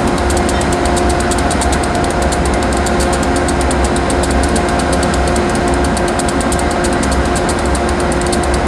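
Diesel locomotive engine idling steadily: a constant low rumble and hum with a fast, even ticking over it.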